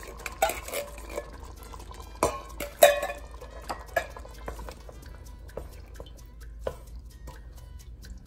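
Metal spoon scraping and knocking against a tin can as coconut milk is scooped out into a stainless steel pot, a run of sharp clinks with the loudest about three seconds in. After that come fainter taps, and then stirring with a wooden spoon near the end.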